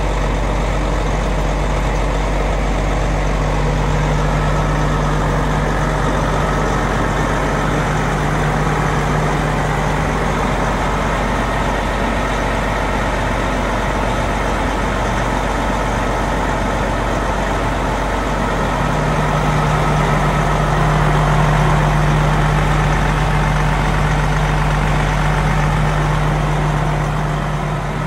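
Detroit Diesel Series 60 inline-six in the back of an MCI D4000 coach idling, a steady, even diesel drone.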